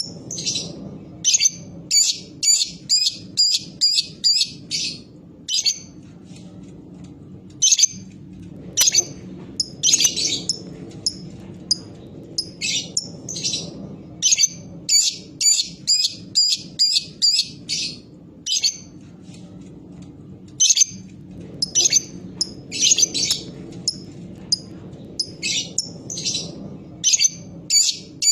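Lovebird giving short, sharp, high chirping calls, the quick 'ngetik' calls, in runs of several a second broken by brief pauses.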